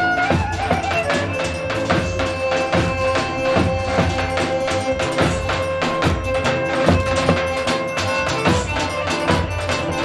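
Lively Roman havası dance music: quick, dense drum and tambourine-like beats under a melody with long held notes.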